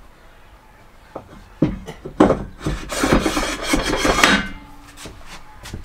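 Knocks and scraping as a wall-mounted swivelling sink unit is moved and handled: a few bumps in the first two seconds, then a couple of seconds of rubbing and scraping that stops about four and a half seconds in.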